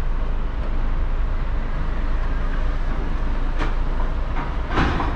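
Lorry's diesel engine and cab noise heard from inside the cab, a steady low rumble as the truck creeps along in crawler gear. A few brief knocks come near the end.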